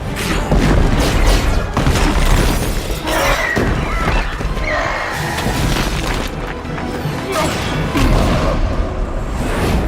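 Action-film battle sound mix: an orchestral score under repeated booms, crashes and shattering impacts.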